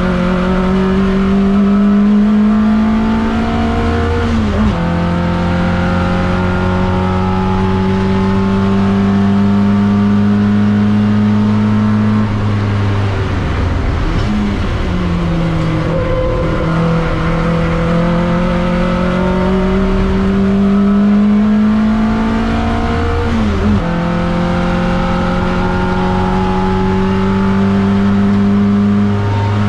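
TVR Vixen race car's engine heard from inside the cockpit, pulling hard with its pitch climbing through the gears. It upshifts about four seconds in and again a few seconds before the end, and around halfway the revs drop and blip as it slows and downshifts for a corner.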